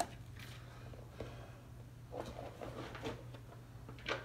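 Spoon and plastic containers handled while serving wet cat food: scattered faint taps, clicks and scrapes, with a sharper click near the end, over a steady low hum.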